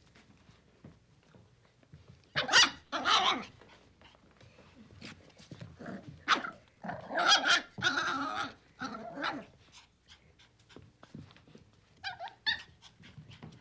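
Puppy barking and growling in play: two sharp yaps about two and a half seconds in, a longer run of barks and growls around the middle, and a few small yips near the end, with faint clicks between.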